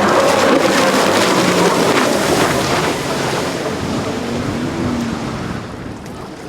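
Sea-Doo personal watercraft engine running over the water with rushing spray, its pitch wavering up and down, then fading near the end. Wind buffets the microphone.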